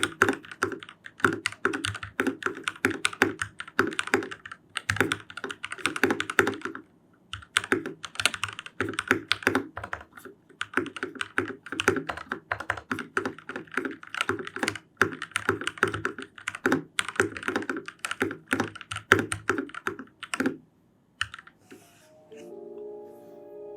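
Typing on a foam-modded hotswap TKL mechanical keyboard with lubed and filmed Gateron Milky Yellow switches: a fast, continuous run of keystrokes with a brief pause about seven seconds in. The typing stops about twenty seconds in, and soft music starts near the end.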